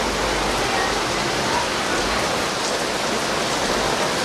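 Heavy downpour: a steady, dense hiss of rain pouring onto the road.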